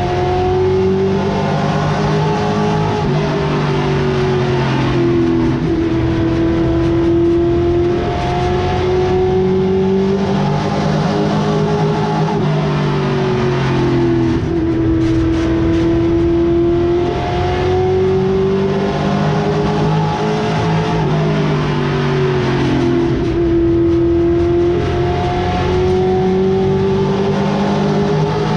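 Late model stock car's V8 engine heard from inside the cockpit at racing speed, the revs climbing along each straight and dropping back through each turn, over and over.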